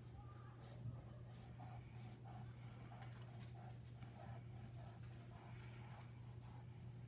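Felt-tip Sharpie marker scratching on paper in quick zigzag strokes, about two or three strokes a second, faint.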